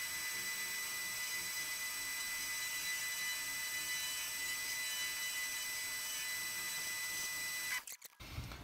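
Small metalworking lathe running steadily with a hum and a thin high whine while it copy-turns a cam blank against a pattern and follower. The sound cuts off abruptly near the end.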